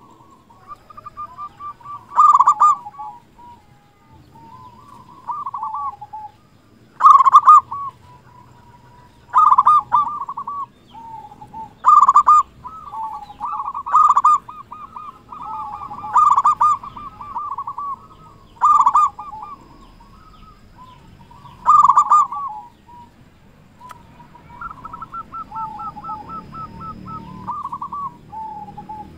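Zebra dove (perkutut) singing: loud rolling coo phrases repeat every two to three seconds, with softer trilling coos between them.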